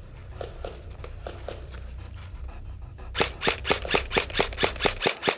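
Airsoft replica gun firing a rapid, even string of shots, about seven a second, starting about three seconds in, over a low steady rumble.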